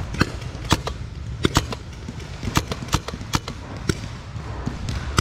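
Paintball markers firing: a scatter of sharp, irregular pops, about ten in the span, some close together in pairs.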